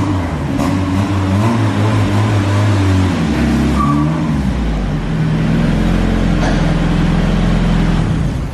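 Lifted off-road Mazda Miata's engine running as the car drives in slowly. The engine note shifts and drops about three to four seconds in, then holds at a steady low pitch.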